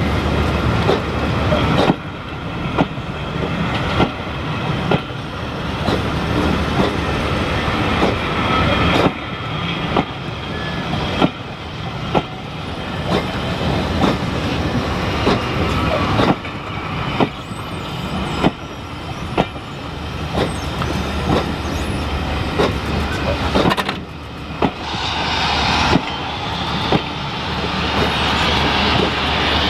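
Passenger coaches of a train rolling slowly past, with a steady rumble and the wheels clacking over rail joints and points about once a second, often in pairs. Near the end a louder rushing noise builds up.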